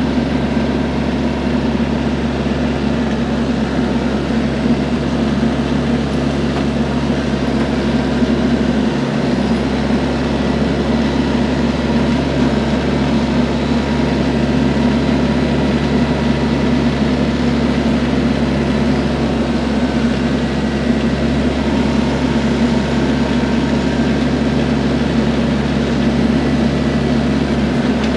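TYM T474 tractor's diesel engine running steadily, an unchanging low drone throughout.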